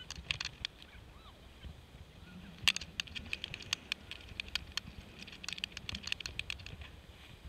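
Skis running over soft spring snow: a low rumble with irregular clicking and scraping, densest about three seconds in and again around six seconds.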